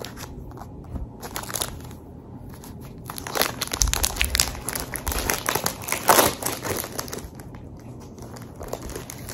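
Plastic shrink wrap on a planner calendar being snipped with scissors and pulled off, crinkling and crackling, busiest in the middle with one loud crackle near the end.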